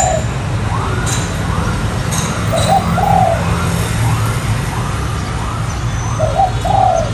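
Spotted dove cooing: a short low two-part coo phrase, heard twice, about three and a half seconds apart. Fainter, higher arched coos sound between the phrases.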